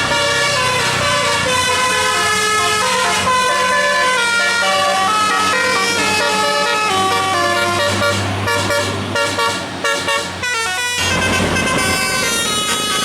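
A bus's telolet musical air horn playing a fast tune of stepped notes over a steady low hum. The tune breaks off briefly about ten and a half seconds in, then carries on.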